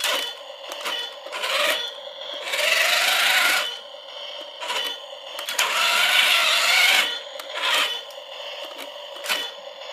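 Toy radio-controlled excavator running: its small gear motors whir in two longer spells, about two and a half and five and a half seconds in, with a pitch that rises and falls, and short clicks and clatters in between over a steady tone.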